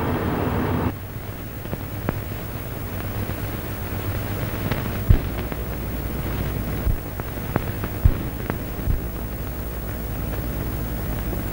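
Steady rushing rumble of a ship under way, cut off abruptly about a second in. A low steady hum follows, with scattered sharp clicks and knocks.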